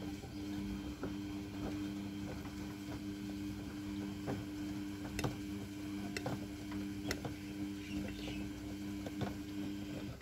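Samsung WFR861 front-loading washing machine tumbling laundry in soapy water: a steady motor hum with water sloshing and scattered light clicks and knocks as the drum turns.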